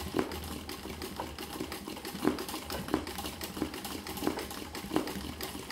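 Sewing machine doing free-motion machine embroidery on a towel: a steady low motor hum with slow, uneven clicks of the needle stitching, roughly one or two a second.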